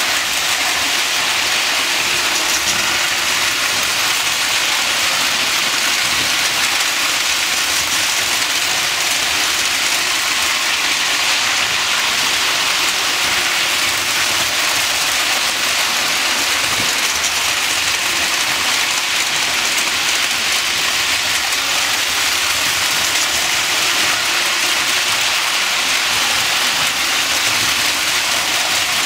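Several Lionel toy trains running on three-rail track: a steady, even clatter and whir of wheels on the rails and the locomotives' motors.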